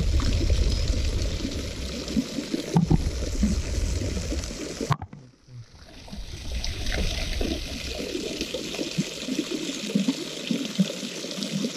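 Water trickling and gurgling steadily into a pond. The sound cuts out briefly about five seconds in, then resumes.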